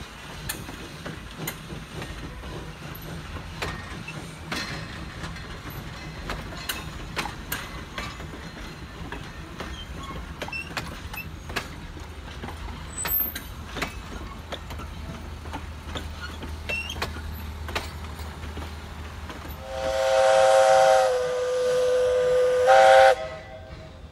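Passenger coaches rolling past with a low rumble and scattered clicks of wheels over rail joints. Near the end, the Jeddo Coal No. 85 0-4-0T tank engine's steam whistle sounds one loud blast of about three seconds.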